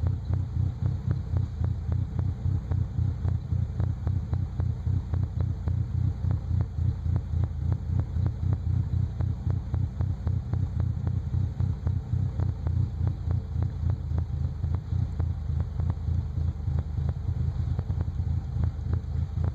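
1998 Nissan Frontier's four-cylinder engine idling roughly, a low running sound whose loudness pulses unevenly several times a second.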